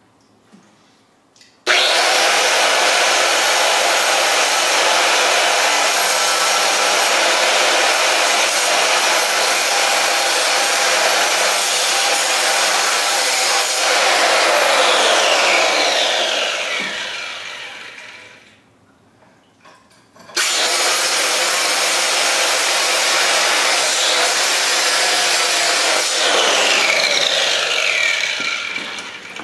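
Small water-fed diamond blade saw cutting concrete: it starts suddenly about two seconds in, runs steadily, then winds down with a falling whine. After a short pause it starts again and runs, winding down with a falling whine near the end.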